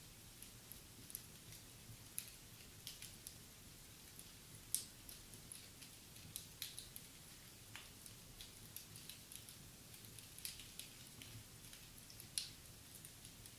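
Wood fire in a fireplace crackling faintly, with irregular small pops and snaps over a low hiss; one sharper snap about five seconds in and another near the end.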